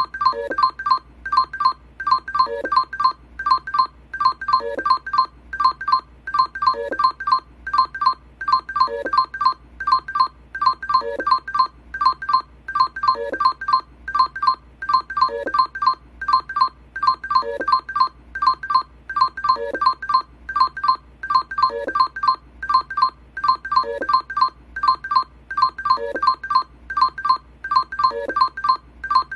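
Electronic beeping music: a short pattern of rapid, pitched beeps that loops over and over, repeating about every two seconds.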